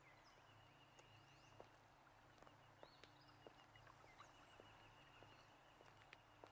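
Faint footsteps of two people walking on a sandy dirt path, soft uneven steps about one or two a second, with faint birds chirping.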